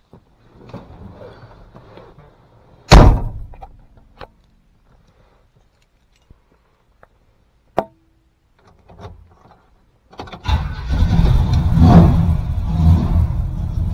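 Classic Chevrolet pickup: the cab door shuts with a single heavy thunk about three seconds in, a few small clicks follow, then about ten seconds in the engine starts and settles into a loud, rumbling idle.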